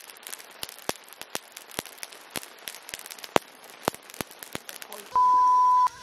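Shrimp shells crackling and clicking irregularly as they are peeled by hand. About five seconds in, a loud steady electronic beep sounds for under a second and cuts off suddenly.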